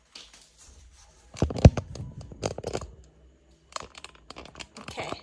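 Handling noise as a phone is set up on a tripod: scattered rustles, scrapes and clicks rubbing against the phone's microphone, with one loud knock about a second and a half in.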